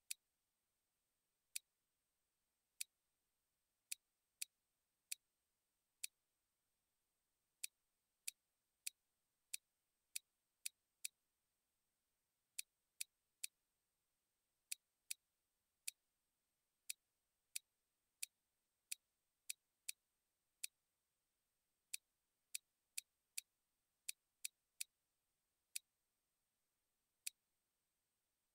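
Computer mouse clicking: sharp single clicks at an irregular pace, roughly one to two a second, over near silence.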